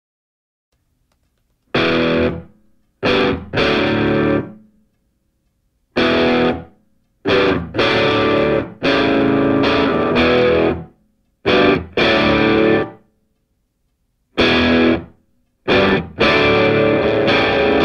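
Rock music on distorted electric guitar: hard chords played in short stop-start blocks, broken by complete silences, after nearly two seconds of silence at the start. Near the end the playing runs on without a break.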